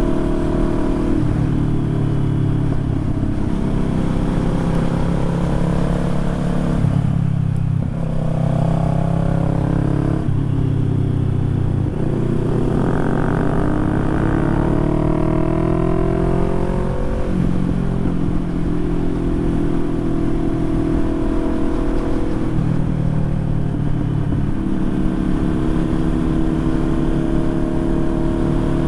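Motorcycle engine running under way, with its pitch changing in steps as the rider shifts and opens or eases the throttle. About halfway through it drops, then rises steadily for several seconds in a long pull.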